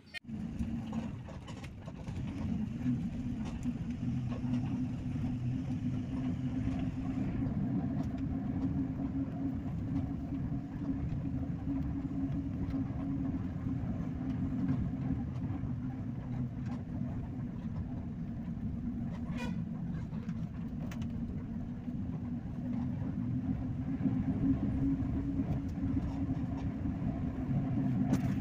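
Engine and road noise of a moving bus heard from inside the cabin: a steady low drone with a strong hum, running on without a break.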